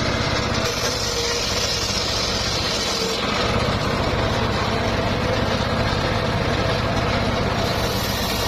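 Homemade circular sawmill running steadily with its engine, the blade cutting mahogany log in stretches: a brighter hiss joins the steady hum about half a second in, fades around three seconds, and comes back near the end.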